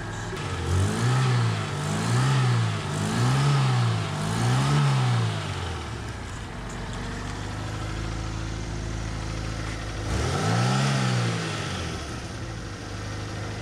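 Fiat Panda 4x4's small petrol engine idling, revved up and back down four times in quick succession, then once more about ten seconds in, while its carburettor is being adjusted after a flooded start.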